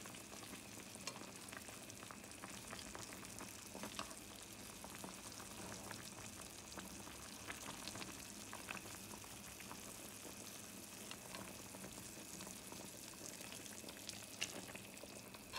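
Pork adobo simmering in a pan, a faint steady bubbling and sizzling, with a few light clicks as chopsticks push the carrot and potato pieces into the sauce.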